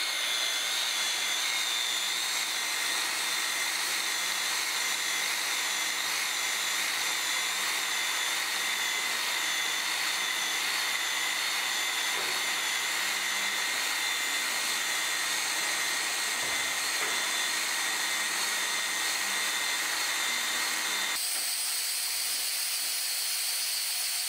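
Weldy EX2 handheld plastic extrusion welder running with a steady high-pitched whine. About twenty-one seconds in, the whine changes abruptly to a different set of tones.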